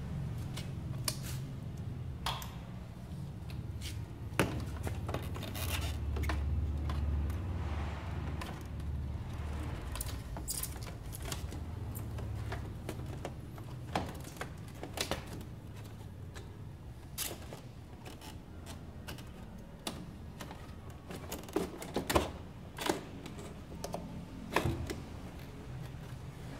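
Plastic body panels of a Yamaha Nouvo LX scooter being handled and fitted back on by hand: scattered clicks, taps and knocks of hard plastic, with a cluster of sharper clicks near the end. A steady low rumble runs underneath.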